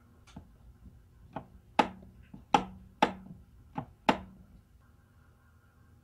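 Wall switch for a dead InSinkErator Badger garbage disposal being clicked on and off, about seven clicks over four seconds, loosely in pairs. The disposal motor does not start or run: the unit has failed.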